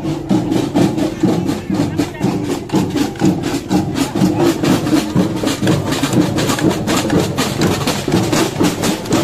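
Children's marching drum band playing marching snare drums with sticks, a fast steady beat of many strokes, with voices of the crowd around.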